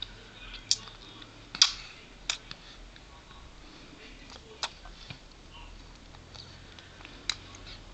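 A baby sucking and gumming a nectarine, making short wet smacking clicks with its lips and tongue, about five of them at irregular intervals, the loudest about one and a half seconds in.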